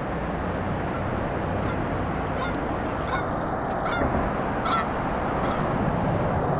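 Canada goose honking repeatedly as it flies over, a series of short honks strongest in the middle, over a steady low background rumble.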